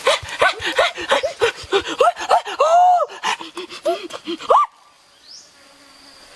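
Two people eating noisily, with rapid short pitched vocal yelps and panting mixed with lip-smacking and chewing clicks, breaking off suddenly about four and a half seconds in.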